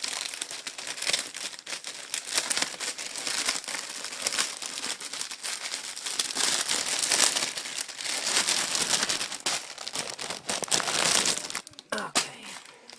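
Parcel packaging crinkling and rustling as it is handled and unwrapped by hand, a dense run of crackles that stops about a second before the end.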